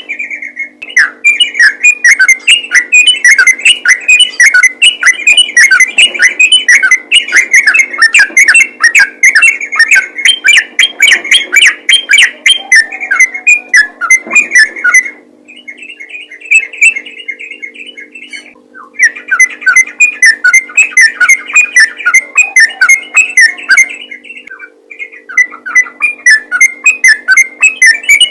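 Yellow-vented bulbul (trucukan) singing a fast, rolling chatter of notes in long unbroken runs, with a few short pauses about halfway through and again near the end. A faint steady hum lies underneath.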